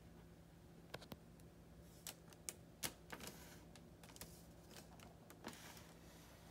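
Faint, irregular clicks and crinkles of clear cellophane bread bags being handled, over a low steady room hum.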